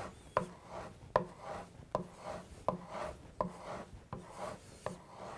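Plane iron stroked back and forth on a suede-side-up leather strop charged with honing compound, a light tap and rub about every three-quarters of a second, about seven times. The strokes bend the burr (wire edge) back and forth until it snaps off, the last step of honing.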